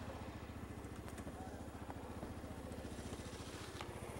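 Yamaha Grizzly ATV's single-cylinder four-stroke engine running steadily at low revs, an even low putter with no revving, with a couple of faint clicks.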